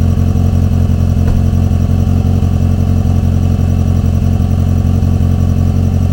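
Renault 19's engine running steadily with an even low pulse, freshly repaired, with no change in pitch or revving.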